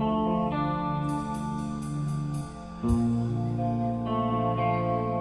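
Live band playing a song's instrumental intro: guitar chords ringing out through effects. A new chord comes in with a low thump about three seconds in.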